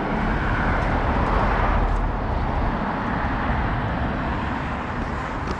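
Street traffic: a vehicle passing, its tyre and engine noise swelling in the first couple of seconds, over a steady low rumble.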